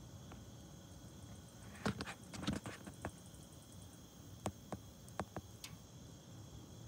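Campfire crackling: a quick cluster of sharp pops and snaps about two seconds in, then a few single snaps, over a faint steady background.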